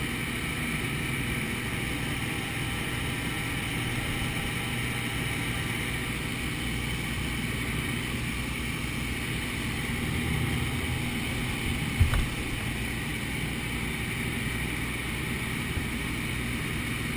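Light aircraft's engine and propeller running steadily, heard inside the cabin with wind noise. A single brief thump about twelve seconds in.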